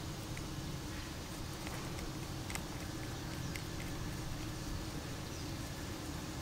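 A few faint, scattered clicks from a spinning fishing reel being handled, the sharpest about two and a half seconds in, over a steady low background rumble.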